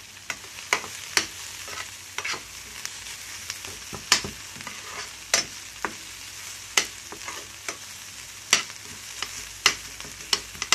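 Chopped onions sizzling in a little sunflower oil in a stainless steel frying pan, with a steady hiss. A metal spoon stirring them clicks and scrapes against the pan at irregular moments, roughly once a second.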